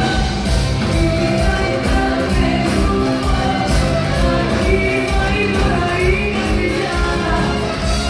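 Band music with a woman singing over it, a pulsing bass beat underneath.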